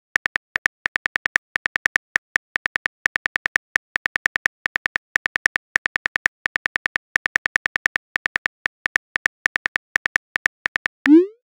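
Simulated keyboard tap sounds from a texting-app animation as a message is typed out, quick clicks in uneven runs at about seven a second. Near the end comes a short rising swoosh, the message-send sound.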